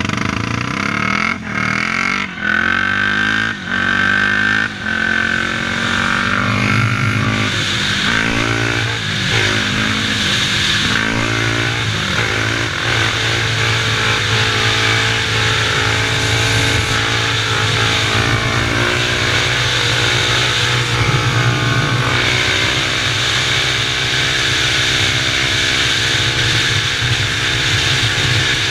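Single-cylinder four-stroke Yamaha sport quad engine accelerating hard through the gears. Its pitch climbs and drops at each of about four quick upshifts in the first few seconds. It then runs steadily at speed under heavy rushing-air noise.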